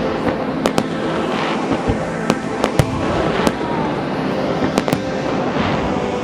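Fireworks going off: a string of about a dozen sharp bangs at uneven intervals, over continuous crackling.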